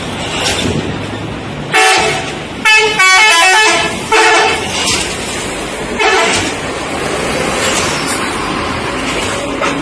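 Indonesian bus 'telolet' multi-tone musical horn sounding in several loud blasts: a short one about two seconds in, then a longer run of quickly changing notes, then shorter toots, over steady street noise.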